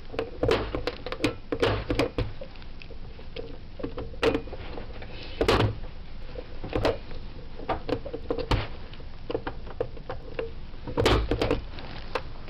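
A 110 connecting block being pressed down onto a 110 wiring block with a punch-down tool and by hand: irregular plastic clicks and knocks as it seats, a few louder ones about halfway through and near the end.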